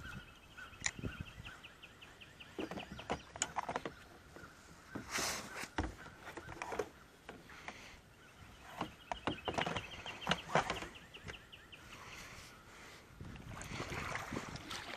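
Kayak paddle dipping and splashing in irregular strokes, fairly quiet. Faint bird calls sound in the background, twice as a quick run of repeated notes.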